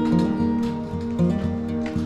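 Background music: acoustic guitar being strummed and plucked.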